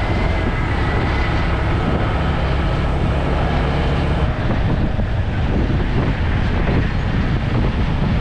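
Motorcycle being ridden along a highway: a steady, dense rumble of engine, tyres and wind on the microphone.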